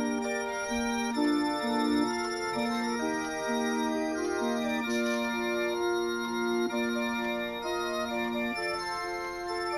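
A clock's built-in electronic melody chip playing a Christmas song, steady organ-like notes in chords with a moving tune on top, plus a short hiss about five seconds in.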